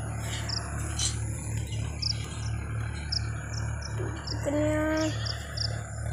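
Short high-pitched chirps from small wildlife, repeating two to three times a second, over a steady low rumble; a short held low tone sounds once a little after four seconds.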